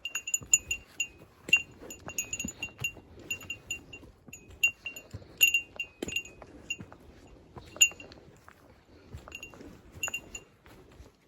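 A small metal bell jingling in quick, irregular dings, a few at a time, with soft low thuds underneath.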